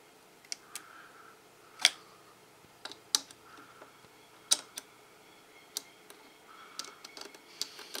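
Sharp, irregular clicks and taps of multimeter test-probe tips against the metal pins and plastic of the coffee machine's mains inlet socket, about a dozen over several seconds, the loudest about two seconds in and again about four and a half seconds in, as the probes are set on the pins to measure resistance.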